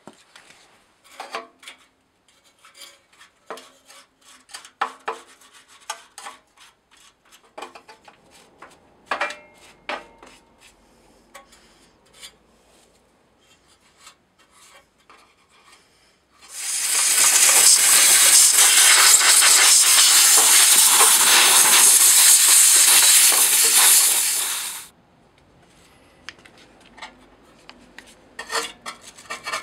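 Metal tools clinking and tapping on a Briggs & Stratton 5 HP engine as its carburetor is unbolted and pulled off. About halfway through, a loud, steady hiss lasts about eight seconds and stops abruptly. Near the end there is a quick scraping at the bare intake port.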